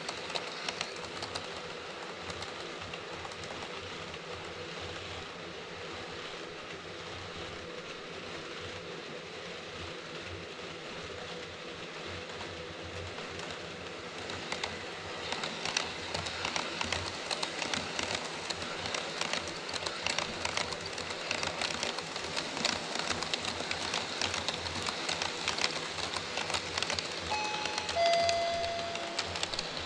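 HO-scale model trains running on KATO Unitrack: a steady rolling hum and rattle of wheels on the track. About halfway in, rail-joint clicking grows louder as a train of Taki 43000 tank cars comes close, with two brief tones near the end.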